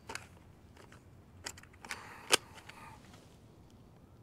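Nerf Rival Curve Shot Flex blaster handled and primed between shots: faint plastic clicks and rattles, with one sharper click a little past halfway.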